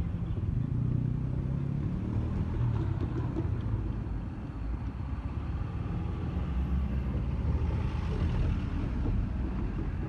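Steady low rumble and hum of electric trains standing at a rail depot, swelling with a wider noise about eight seconds in.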